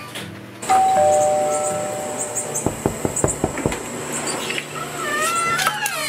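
Two-note ding-dong doorbell chime, a higher note then a lower one, ringing on for about two seconds. Then comes a quick run of knocks on the door, and near the end a creaking squeal as the front door is opened.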